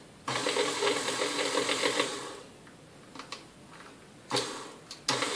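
Vintage KitchenAid Model 3B stand mixer's motor switched on: it starts suddenly and runs with a whine for about two seconds, winds down and cuts out, gives a brief spurt, then starts again near the end. The stop-start running comes from a speed-control switch acting sketchy, which could just be dirt in it.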